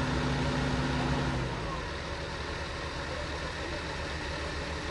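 Hitachi hydraulic excavator's diesel engine running with a steady low throb. A steadier hum over it stops about a second and a half in, and the engine sound drops a little in level.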